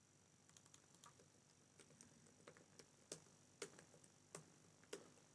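Faint, uneven clicking of computer keyboard keys and a mouse as a search is typed: a dozen or so light taps, a little sharper from about three seconds in.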